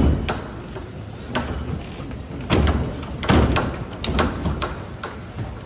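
Dull knocks and thumps at uneven intervals, about five of them, the loudest two coming about two and a half and three and a half seconds in.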